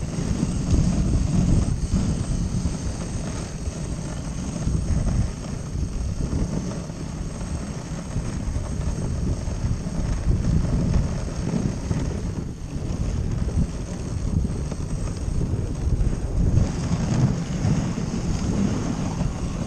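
Dog sled gliding over packed snow behind a running husky team: a steady low rumble and hiss from the runners, with wind buffeting the microphone.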